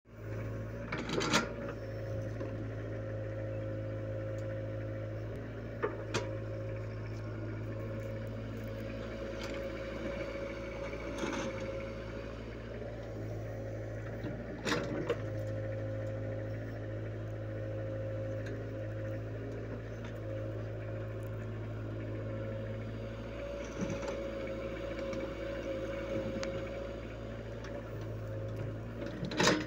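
Hydraulic excavator's diesel engine running steadily as it loads soil into a tractor trolley, with a steady higher tone over the low hum. Sharp knocks every few seconds, loudest about a second in and near the end.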